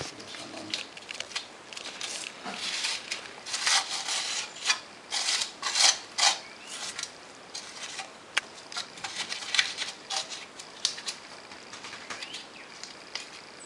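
Irregular scraping, rubbing and light clinking of metal brake parts being handled, in short strokes that are busiest in the first half and thin out toward the end.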